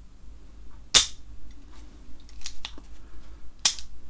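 KJW KC-02 airsoft trigger mechanism, fitted with new steel hammer, sear and trigger, being dry-fired by hand: the hammer snaps down with a sharp metallic click about a second in and again near the end, with a fainter click between.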